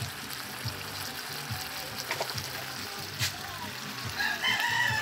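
Fish and peppers simmering in sauce in a frying pan over a clay charcoal stove: a soft steady bubbling hiss, with one sharp pop about three seconds in. Music plays underneath, and a voice comes in near the end.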